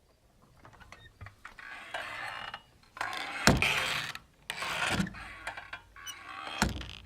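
Wooden saloon swinging doors creaking on their hinges as they swing, with three sharp knocks as the doors bang together or against their stops.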